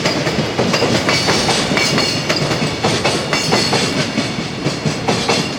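Freight train rolling past, its wheels clacking over the rail joints in a quick, uneven run of clicks over a steady rumble.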